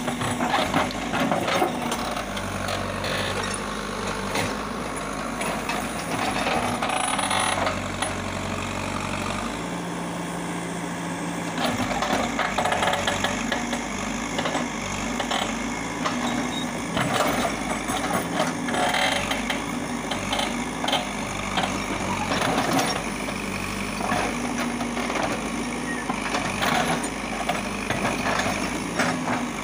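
Caterpillar backhoe loader's diesel engine running, its note shifting with load as the backhoe digs, mixed with frequent cracks and knocks of roots and branches breaking and the bucket working through the soil.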